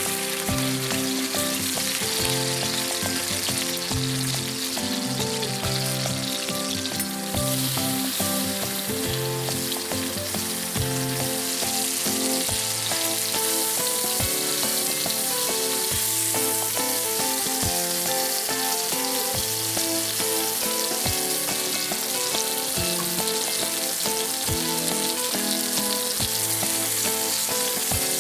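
Steak sizzling steadily as it fries, with background music playing over it.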